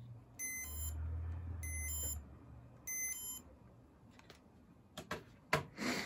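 Casablanca Comfort Touch fan control beeping three times, short high electronic beeps about a second apart, as the fan speed is stepped down from the remote. A low hum runs under the first two beeps, and a few clicks and knocks come near the end.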